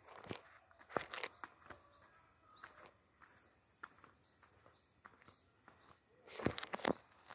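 Footsteps on a concrete footpath, irregular, with a louder cluster near the end. A bird calls behind them in a run of short rising chirps, repeated every half second or so from a couple of seconds in.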